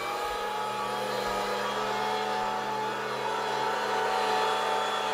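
STX Megaforce Classic 3000 electric meat grinder running at high speed, a steady motor hum and whine as it grinds semi-frozen chuck roast.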